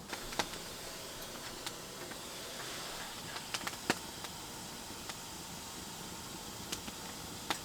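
Wet firewood burning in a small wood stove, hissing steadily with scattered sharp pops: the moisture in the wood is boiling off.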